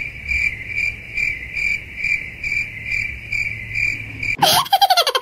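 Cricket chirping, one steady high chirp repeating about three times a second. Near the end it breaks off into a short burst of rapid clicking with falling pitch.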